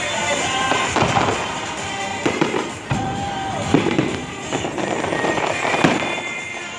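Aerial fireworks shells bursting: a string of sharp bangs at irregular intervals, over music playing.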